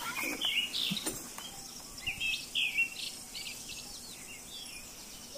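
Birds chirping over a faint hiss: short, quick calls that come in clusters, in a recording played sped up, so faster and higher than natural.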